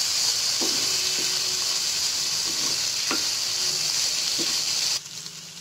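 Ginger, garlic cloves and green chillies sizzling steadily in hot mustard oil in a kadhai while being stirred with a wooden spatula, with a few light knocks of the spatula against the pan. The sizzle cuts off suddenly about five seconds in.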